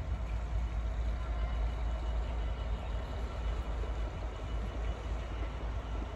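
Distant train running steadily along the West Coast Main Line: an even low rumble with a wash of track noise.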